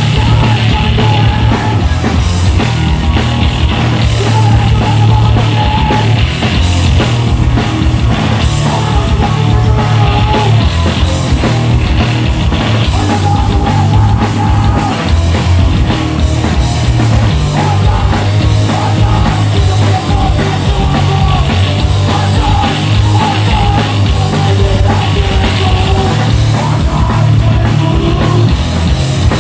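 Hardcore punk band playing loud and live: distorted guitars, bass and a pounding drum kit, dense and steady throughout.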